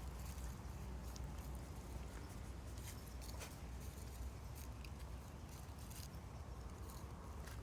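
Faint rustling and scattered small clicks from a Shiba Inu being massaged by hand, over a steady low rumble.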